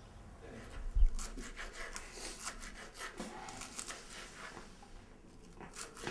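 A knife slicing vegetables on a cutting board: a run of short, irregular scraping cuts, several a second. About a second in there is a dull thump.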